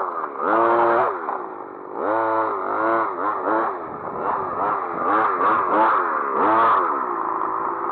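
Large-scale RC buggy's engine revved in a string of short bursts, its pitch sweeping up and falling back again and again, then settling to a steady idle near the end.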